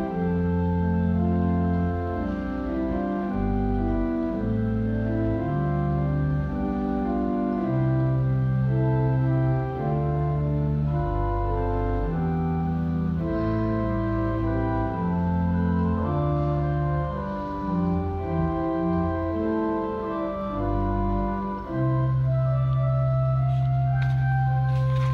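Church organ playing a chordal passage of sustained notes over a moving bass line; near the end it settles onto a long held low pedal note under a held chord.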